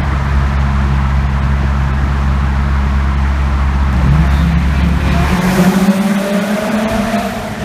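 Bridgeported Mazda 13B rotary engine of a turbocharged RX-7 running loud with a steady drone. About five seconds in the sound changes and the pitch climbs as the engine revs up.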